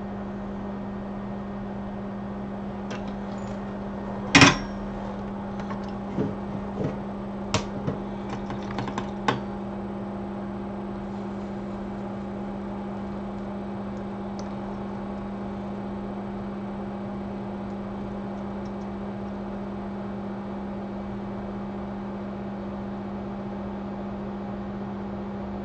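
Steady low hum from microsoldering bench equipment, with a sharp click about four seconds in and a few smaller clicks and taps of a tool against the circuit board between about six and nine seconds in.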